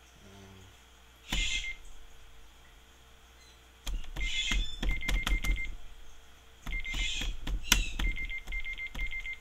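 Buttons on an electronic keypad pressed in quick runs, each press a click with a short high beep, with a few brief hissy bursts between the runs.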